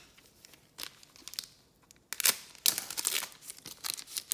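Crinkling and tearing of a trading-card pack's foil wrapper being ripped open by hand, faint at first and loud and dense from about two seconds in.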